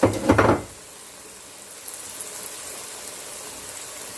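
Chicken frying in oil in a pot, a steady sizzle with scattered light crackles. Two brief, louder sounds come in the first half-second.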